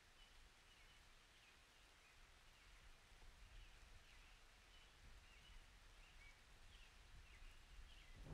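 Near silence: faint room tone with faint bird chirps in the background.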